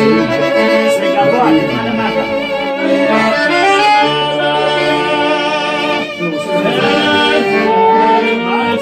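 Live band music with long held, wavering notes and several instruments playing together.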